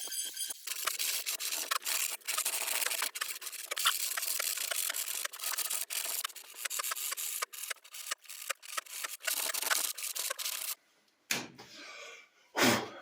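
A hand tool or abrasive scraping and rubbing on the plywood drum, an irregular scratchy noise full of small clicks that stops about 11 seconds in. A single loud knock follows near the end.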